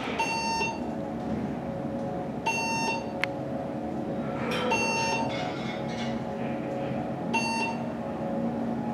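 The floor-passing beep of a 1992 Montgomery traction elevator sounds four times, about every two and a half seconds, as the car rises. Under it runs the steady hum of the car in motion, with one sharp click about three seconds in.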